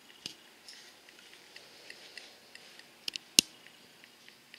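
Quiet room tone with scattered small clicks and ticks, and a sharper click about three and a half seconds in.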